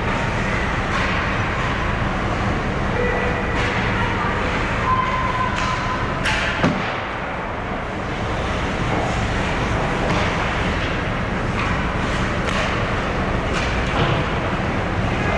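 Ice hockey arena sound during play: a steady wash of rink noise with scattered sharp knocks of sticks and puck, the loudest about six and a half seconds in, and brief distant shouts.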